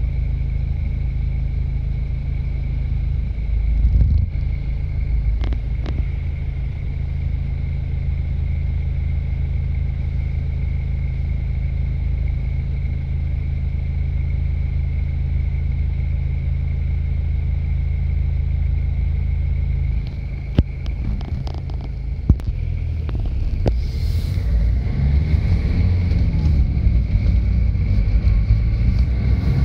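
Car engine idling steadily, heard from inside the cabin while stopped in traffic. About three-quarters of the way through it revs up as the car pulls away.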